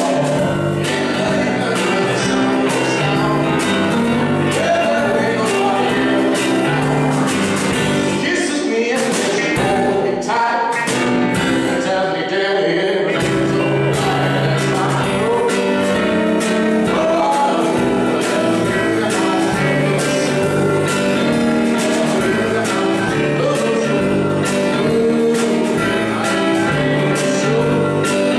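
Live small band playing: a man sings over a Technics KN2000 electric keyboard, with drums and cymbals keeping time and an electric guitar.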